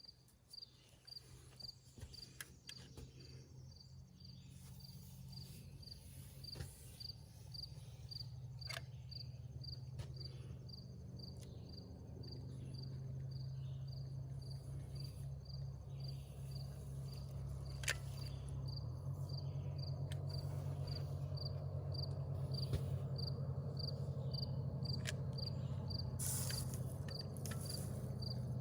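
An insect, likely a cricket, chirping at an even pace, about three short high chirps every two seconds, over a low steady hum that grows gradually louder, with a few scattered clicks.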